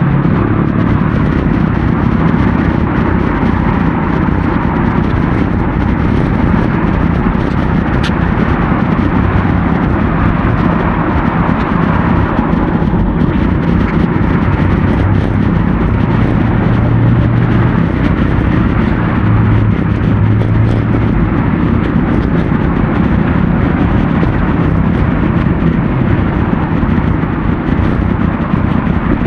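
Steady, loud road noise heard on the ride: traffic and rushing air on a bicycle-borne action camera's microphone, with one sharp click about eight seconds in.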